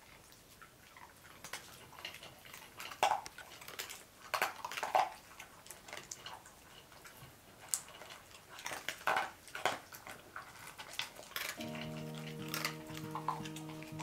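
Two corgis eating dry kibble from wooden bowls: irregular crunching and the clatter of kibble and muzzles against the bowls, in uneven clusters. Background music comes in near the end.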